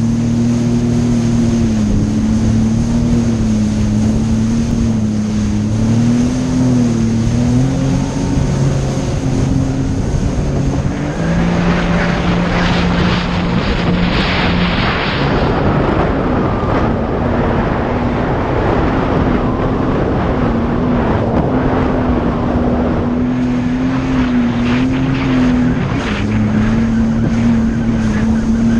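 A jet ski's engine runs steadily at speed, its pitch wavering slightly with the throttle. A rushing noise of water and wind swells over it twice, around the middle and again near the end.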